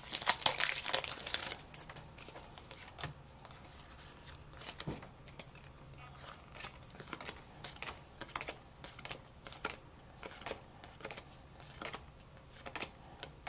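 Foil booster pack of trading cards crinkling as it is torn open, then a string of light clicks and taps as the cards are slid and flicked through one by one.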